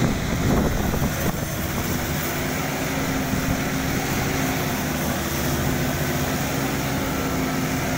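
Combine harvester's diesel engine running steadily at an even pitch.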